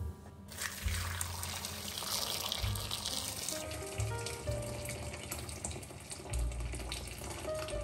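Boiling water poured in a thin stream into a glass bowl of cherry tomatoes, a steady splashing hiss as the bowl fills, starting about half a second in. The tomatoes are being scalded to loosen their skins for peeling. Soft background music plays underneath.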